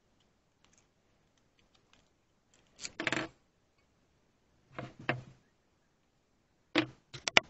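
Short clattering knocks of metal objects being handled and set down on a workbench: a few separate bursts a second or two apart, with near silence between them and a quick double knock near the end.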